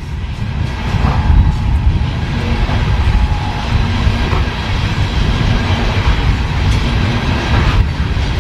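Freight train of CSX coal cars rolling past, a steady rumble of wheels on the rails.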